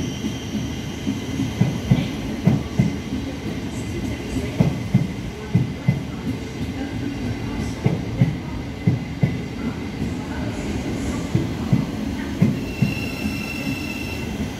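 Thameslink Class 700 electric train rolling slowly past along the platform, its wheels thumping irregularly over the rail joints above a steady rumble. A high thin whine comes in near the end.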